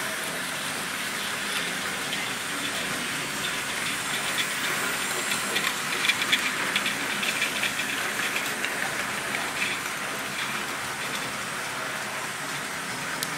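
Model trains running around the layout: a steady whir of motors and wheels on the track, with quick clicking that is loudest about six seconds in, as a train passes close by. The sound cuts off abruptly at the end.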